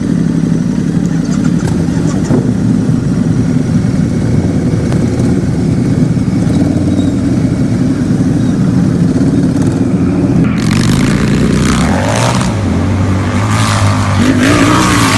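Harley-Davidson V-twin motorcycle engine running steadily at low revs. About ten seconds in it turns rougher and louder, and its note then rises as it is revved.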